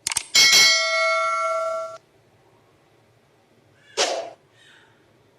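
A single bell-like metallic clang after two quick clicks, ringing with several pitches at once for about a second and a half before cutting off abruptly. A short swish follows about two seconds later.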